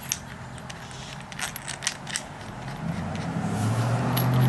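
A few light clicks as the keyless chuck is handled, then an impact driver's motor starts about three seconds in and runs with a steady hum that grows louder: the driver is run forward to tighten the keyless chuck adapter.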